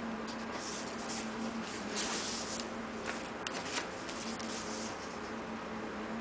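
Hands rustling and handling paper packaging in short, irregular bursts, with a few sharp clicks about three to four seconds in, over a steady low hum.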